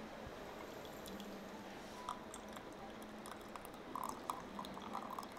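Brewed tea pouring in a thin stream from a glass gaiwan into a glass pitcher, trickling and dripping, growing more distinct about four seconds in.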